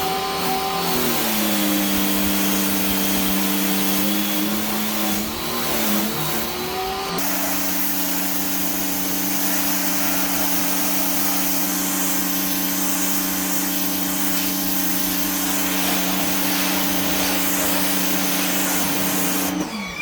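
Greenworks 1500 PSI electric pressure washer running: a steady motor-and-pump whine whose pitch dips and wavers for the first seven seconds, then holds steady with more hiss from about seven seconds in, cutting off abruptly near the end.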